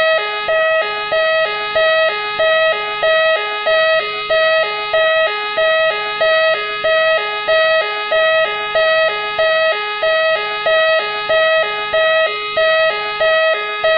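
Siren of Machine X, the Nissan Skyline police car, sounding a hi-lo two-tone pattern: a higher and a lower note alternate steadily, about three times every two seconds.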